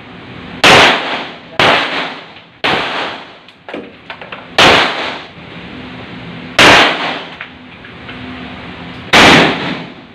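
Six handgun shots at uneven intervals in an indoor firing range. Each is a sharp crack with an echoing tail off the range walls. A few light clicks come just before four seconds in.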